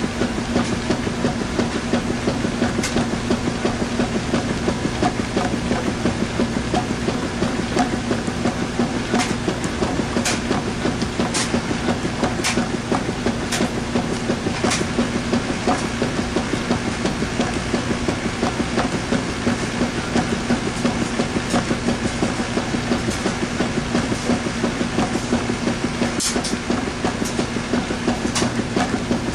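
Washing machine running with a load of towels: a steady motor hum under a continuous churning of the drum, with scattered sharp ticks now and then.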